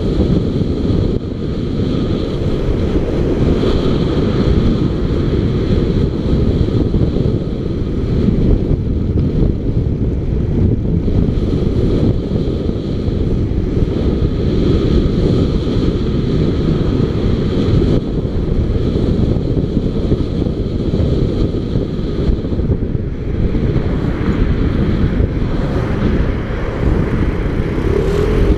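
Steady wind rumble on the microphone of a motorcycle-mounted camera while riding at road speed, with the motorcycle's engine running underneath.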